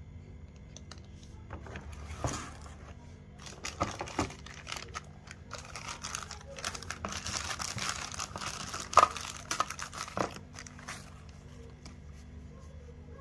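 Packaging being unwrapped and handled: irregular crinkling and rustling with scattered sharp clicks, loudest about nine seconds in.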